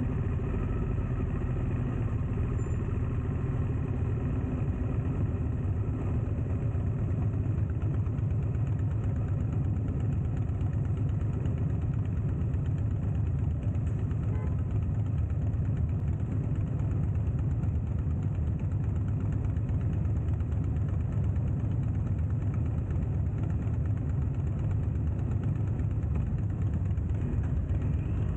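Motorcycle engine running at a steady pace while riding, under a constant low rush of wind and road noise.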